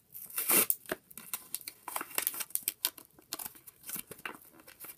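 Toy engine packaging being worked open by hand: irregular crinkling, tearing and clicking, with a louder rustle about half a second in.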